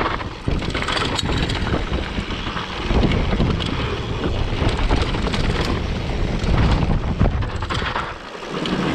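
Strong wind buffeting the microphone of a mountain biker riding a dirt trail, with a steady low rumble and many short knocks and rattles from the bike going over bumps. The wind noise dips briefly near the start and again near the end.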